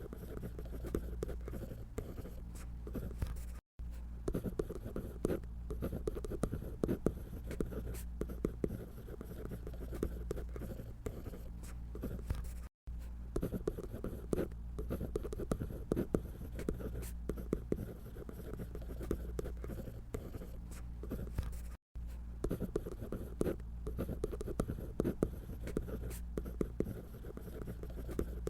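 Scratchy sound of drawing on paper: quick, irregular strokes of a drawing tool. The strokes cut out completely for an instant three times.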